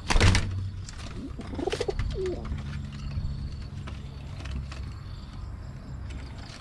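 Domestic pigeon wings clattering loudly in a sudden burst of flapping right at the start, then pigeons cooing softly.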